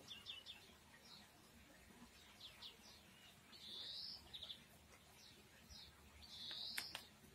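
Faint small birds chirping: short rapid trills and two longer, harsher calls, one about halfway through and one near the end. A couple of faint clicks come with the second.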